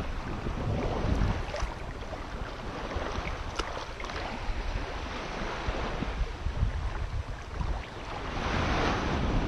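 Shallow seawater sloshing and swishing around wading legs, with a louder swish near the end, over the low rumble of wind on the microphone.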